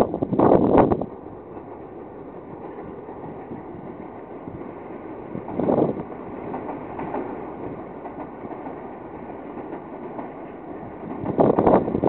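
Long Island Rail Road M7 electric multiple-unit train running past on the tracks, a steady rumble of wheels on rail. Three brief louder gusts of wind noise hit the microphone, about a second in, near the middle and near the end.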